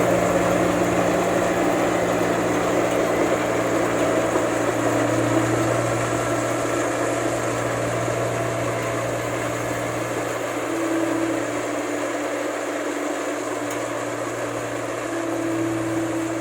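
Rice combine harvester's diesel engine running steadily, easing slightly in loudness toward the end.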